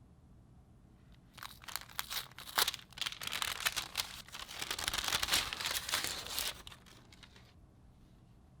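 Packaging being unwrapped and handled, crinkling and crackling. The rustle starts about a second in, runs for about five seconds with sharp crackles and fades near the end.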